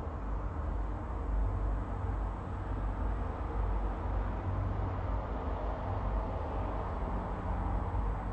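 Steady background noise: a low rumble with a hiss over it, even and unchanging throughout.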